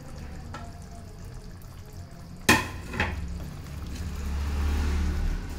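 A spoon stirring thick curry gravy in a metal kadhai, knocking twice against the pan about two and a half seconds in, the first knock the louder. A low rumble builds near the end.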